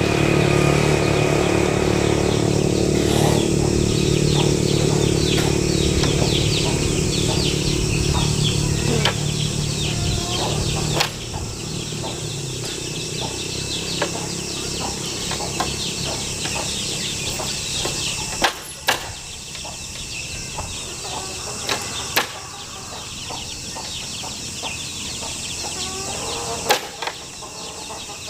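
Many birds chirping together, with a motor engine's rumble fading away during the first ten seconds and a few sharp clicks later on.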